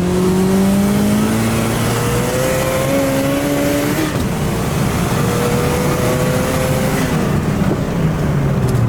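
Turbocharged car engine under full-throttle acceleration, heard from inside the cabin: the revs climb steadily, drop sharply at a gear change about four seconds in, climb again, and drop at another shift about seven seconds in.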